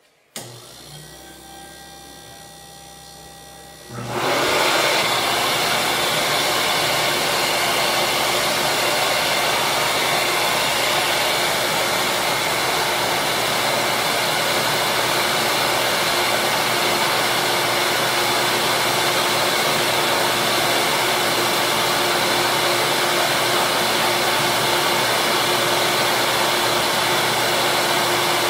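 Small electric bench sander shaping a tiny plastic curling-shoe slider held on a nail. After a click, a quieter motor hum runs for a few seconds, then from about four seconds in a loud, steady whirring rush of sanding holds to the end.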